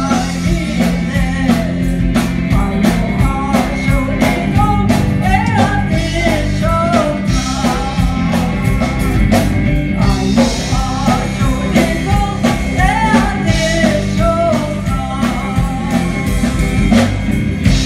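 Gospel song: a singing voice carries the melody over a band, with regular drum hits and sustained low notes underneath.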